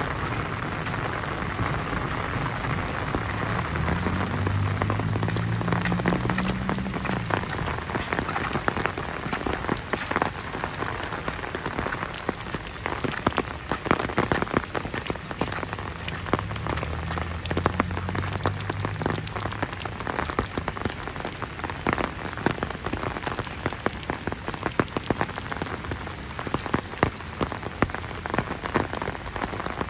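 Steady rain falling, with many sharp, irregular drop strikes close by. A low hum rises and fades twice, about four and seventeen seconds in.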